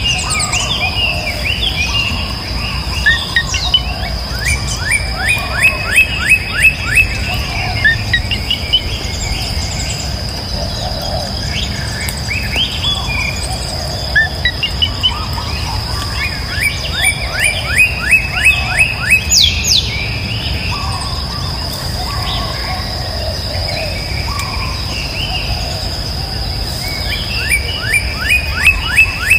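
Birds chirping and calling, with a rapid trill of quick falling notes three times, about eleven seconds apart. A steady high-pitched tone runs beneath.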